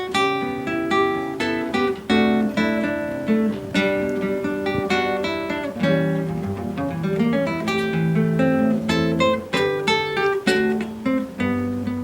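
Acoustic guitar playing the instrumental opening of a samba, quick plucked notes over a moving bass line.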